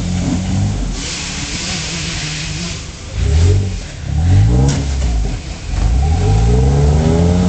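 Jeep Wrangler engine revving in repeated bursts while crawling over rocks, the pitch rising with each push of the throttle. One sharp knock a little past the middle.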